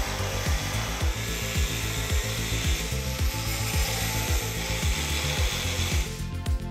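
An angle grinder cutting off the corners of a metal plate: steady grinding that stops about six seconds in. Background music with a steady beat plays underneath.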